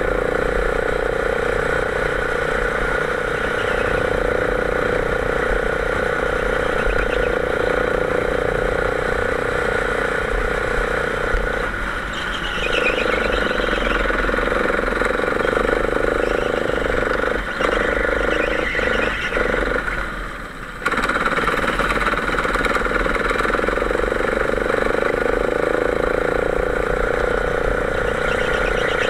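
Kart engine running steadily under throttle, heard close up from the kart. The engine note dips briefly about twelve seconds in and again for about a second around two-thirds of the way through, then comes back sharply.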